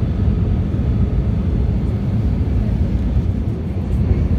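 Steady cabin roar of an Airbus A319 on final approach, heard from a window seat beside the wing and engine: engine and airflow noise, heavy at the low end.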